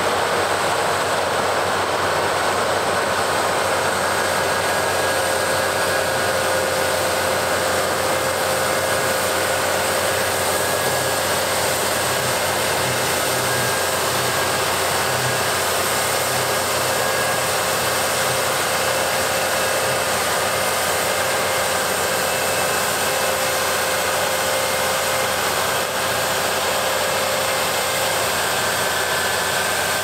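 Claas Lexion combine harvester running while cutting and threshing wheat: a steady, even mechanical rush with a faint whine held through it.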